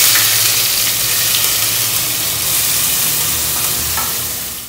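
Chopped onions sizzling loudly in hot oil in a pot, just tipped in from a bowl. The sizzle eases a little and cuts off suddenly near the end.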